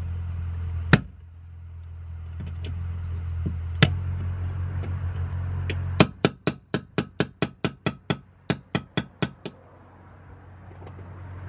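Hammer tapping a metal punch to drive a drilled-out aluminium rivet out of a car door's inner panel. There are a couple of single taps, then a quick run of about fifteen taps, roughly four a second, from about six seconds in.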